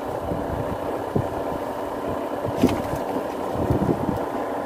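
Fishing boat's engine idling steadily, with irregular low thuds and one sharp knock a little past halfway.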